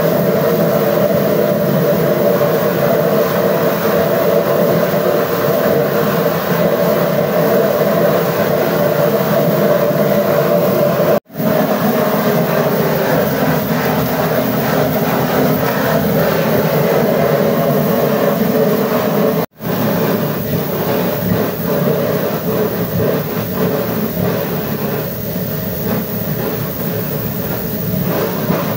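Kerosene-fired melting furnace burner running steadily at full flame while it heats a crucible of metal. The sound cuts out for an instant twice, about eleven and nineteen seconds in.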